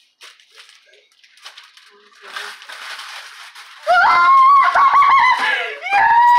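Wrapping paper rustling and tearing as a large present is unwrapped, then two long, loud, high-pitched squeals of delight from a woman, each rising and then falling in pitch.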